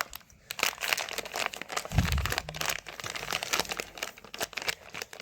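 Toy packaging crinkling and rustling in the hands as it is turned and worked at, in dense irregular crackles, with a low thump about two seconds in.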